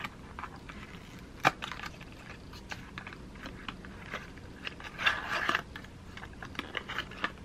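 Small paperboard gift box being opened by hand: scattered clicks and crinkles of the card flaps being pulled, with a sharp snap about a second and a half in and a louder rustle around five seconds in.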